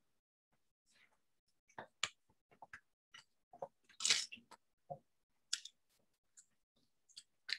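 Two people chewing bites of a McDonald's Big Mac: soft, irregular mouth noises with small crunchy ticks, a louder one about four seconds in.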